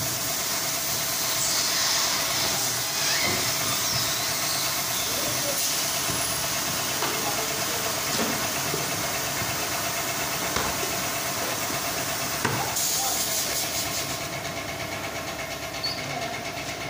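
Plastic bottle factory machinery running steadily, a constant hum with a hiss over it, with a few light clicks and knocks scattered through.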